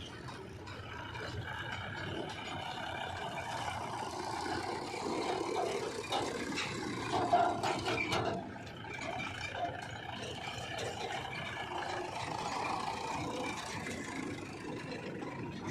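Engine of a JCB 3DX backhoe loader running steadily as it works, with a brief louder clatter about seven seconds in.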